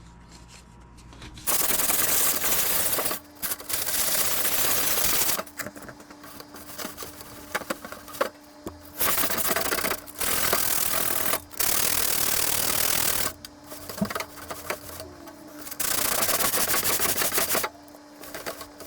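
Electric sander grinding rust off a metal frame in repeated bursts of a few seconds each, its motor hum going on between them.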